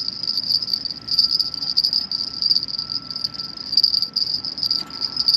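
A chorus of crickets and other night insects chirring steadily, high-pitched and pulsing, with a faint steady mid-pitched tone beneath.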